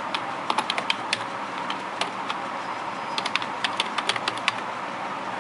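Computer keyboard typing: two quick runs of keystrokes as a Wi-Fi network password is typed in, over a steady background hiss.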